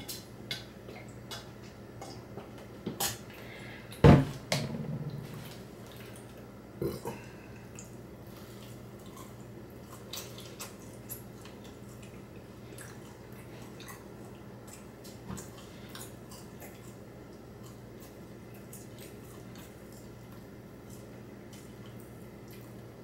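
A person drinking from a plastic bottle and then eating: small wet mouth clicks and smacks, with a loud thump about four seconds in followed by a brief lower sound. After about eight seconds only occasional faint clicks.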